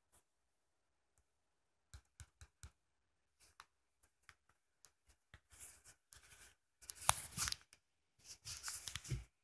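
Handling noise on a phone's microphone: a few light clicks about two seconds in, then rustling and rubbing bursts that grow louder over the last few seconds.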